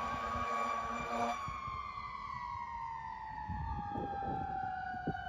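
Fire engine's air horn blasting over its siren; the horn cuts off about a second in and the siren slowly winds down in pitch, with a second siren tone rising near the end.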